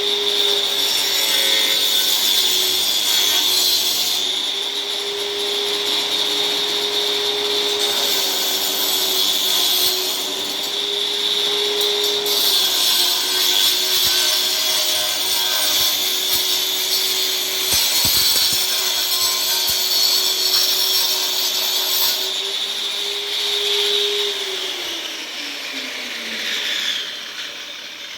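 Angle grinder running with a steady high whine, a harsh hiss swelling over it in several stretches as the disc works. About twenty-four seconds in it is switched off and the whine falls in pitch as the disc spins down.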